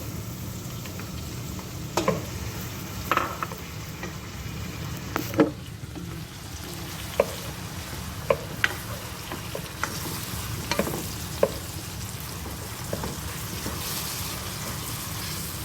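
Tomato, onion and garlic frying in butter in a wok while a utensil stirs them, with a steady sizzle and scattered sharp knocks of the utensil against the pan.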